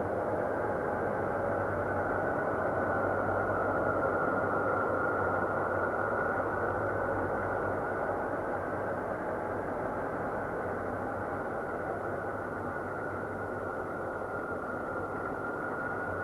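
Ambient space drone billed as the sound of Saturn: a steady, dense, noisy drone sitting in the low-to-middle range, with a constant low hum beneath it and no changes or separate events.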